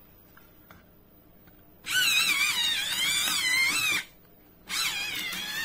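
Brustro electric pencil sharpener's motor whirring as its blade grinds a pencil, the whine wavering in pitch with the load. It runs for about two seconds, stops briefly, and starts again near the end.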